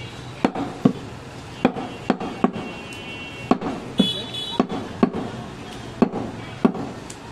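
Heavy curved butcher's blade chopping goat meat on a round wooden log block: about a dozen sharp knocks at an uneven pace, one or two a second.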